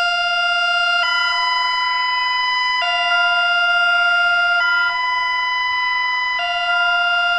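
Electronic two-tone emergency alert alarm, a loud steady tone switching back and forth between a lower and a higher pitch about every two seconds, ending with a sudden cut-off.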